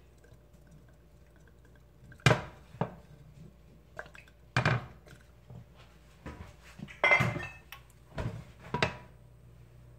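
A handful of sharp knocks and clinks from a glass oil bottle and cookware being handled at the stovetop, the first about two seconds in, after a quiet stretch while oil is poured into the cold frying pan.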